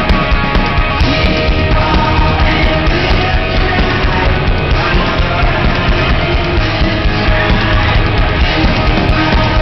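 Loud, heavy rock music with distorted guitars and a fast, driving beat.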